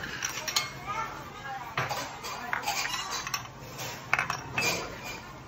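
Tableware clinking: bowls, spoons and chopsticks knocking together on a restaurant table, several separate clinks, with the murmur of diners' chatter behind.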